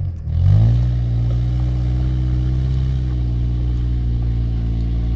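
Off-road 4x4's engine running steadily under throttle. Its pitch dips sharply at the very start and picks back up within half a second, then sags a little near the end.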